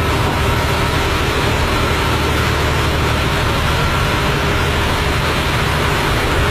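Diesel engine and road noise heard inside the cabin of a moving KSRTC bus: a steady, loud drone with a faint steady whine over it.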